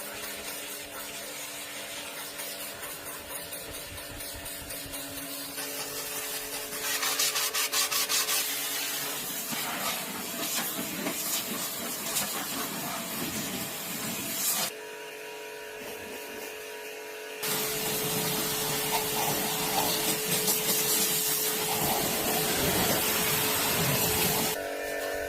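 Steady hissing, rasping workshop-tool noise over a faint hum; it changes abruptly several times.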